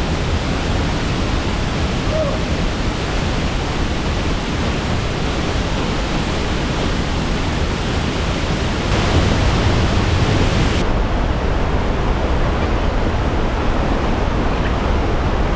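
Waterfall rushing and splashing as a loud, steady roar of water. It grows a little louder about nine seconds in.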